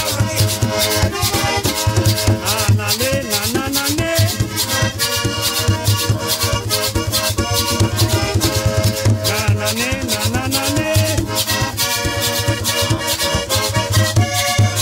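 Background music with a steady, busy percussion beat, a bass line and a melody.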